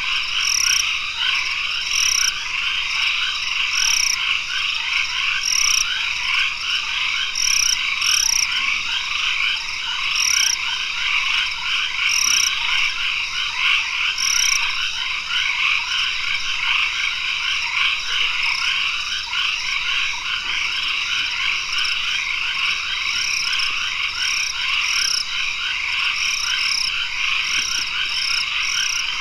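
Dense dusk chorus of many tropical forest frogs calling over one another, with a short high note repeating about every two seconds and coming more often near the end.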